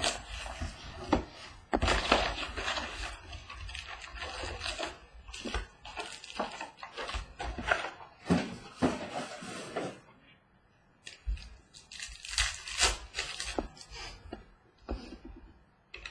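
Foil trading-card pack being torn open and crinkled, then cards handled and slid against each other: irregular crackling and sharp snaps, with a short pause about ten seconds in.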